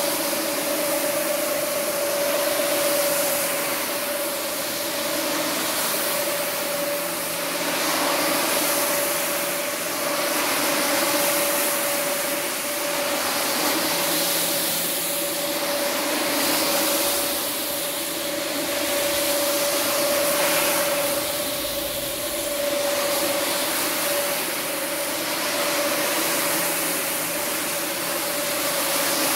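Single-disc rotary floor scrubbing machine running on a foam-soaked rug: a steady electric-motor hum over the hiss of the disc scrubbing the wet pile. The sound swells and eases every few seconds as the machine is steered across the rug.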